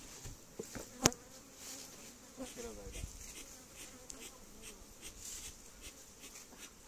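Honey bees buzzing around an opened wooden box hive, a steady hum, with one sharp knock about a second in.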